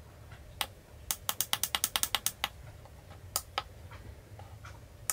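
Push buttons on a Launch BST-460 battery tester's keypad clicking as the rated cold-cranking amps are stepped down to 1350A: one press, then a fast run of about a dozen presses in under a second and a half, then a few more single presses near the end.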